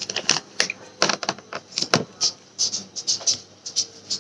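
Metal lock pick raking and clicking against the pins inside a brass padlock's pin-tumbler cylinder, with a tension wrench in the keyway. Irregular quick ticks and scratches come several a second.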